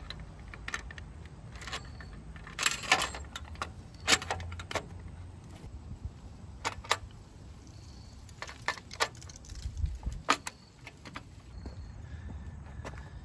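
Irregular metallic clicks and clinks from a chrome filler-panel bracket and its screws being handled and fitted against a motorcycle's rear fender, a few close together about three seconds in.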